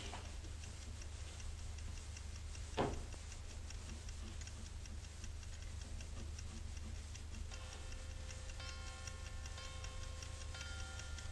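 A clock ticking steadily, with a single sharp click about three seconds in. Faint held tones at several pitches come in about two-thirds of the way through.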